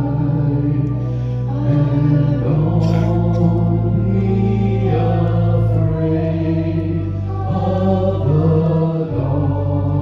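Two men singing a hymn as a duet into handheld microphones, in long held notes over a sustained low accompaniment whose chords change about every few seconds.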